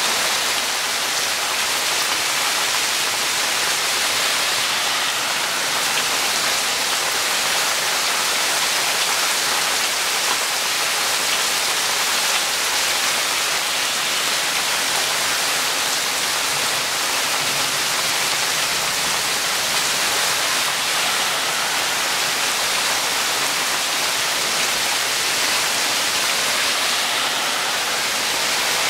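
Heavy rain falling steadily in a rainstorm, a dense, even hiss of drops on the ground and surfaces.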